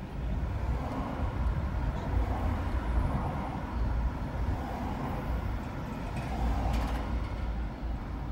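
Steady low rumble of a car's engine and tyres heard from inside the cabin as it drives along.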